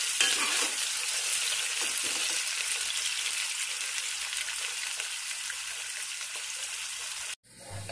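Chopped onions sizzling steadily in hot oil in a nonstick pan, being lightly browned. The sizzle stops suddenly about seven seconds in.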